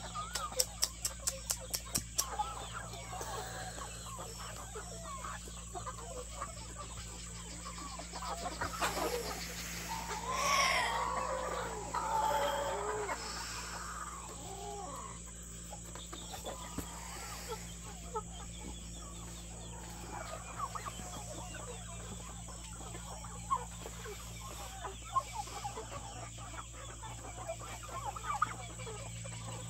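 A flock of chickens clucking with many short calls, and a louder drawn-out call from about ten to thirteen seconds in.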